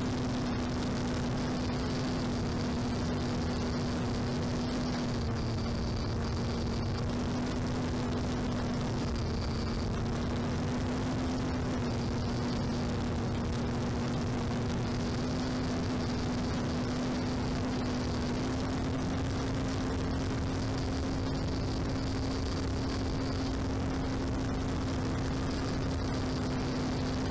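Electric motor and propeller hum of a small FPV drone, heard from its own onboard camera: one steady tone whose pitch drifts slightly up and down with throttle, over a constant rush of wind on the microphone.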